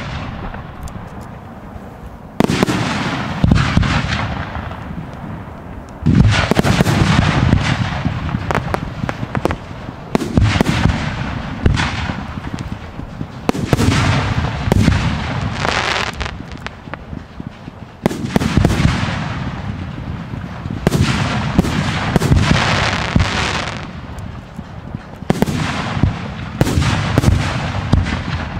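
Fireworks display: aerial shells bursting one after another with sharp booms, often several within a second or two. Each burst trails off over a second or two, and the bursts come thicker near the end.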